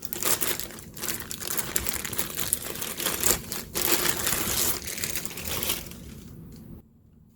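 Packaging crinkling and rustling as it is handled and unwrapped, in a quick irregular run of crackles that stops about seven seconds in.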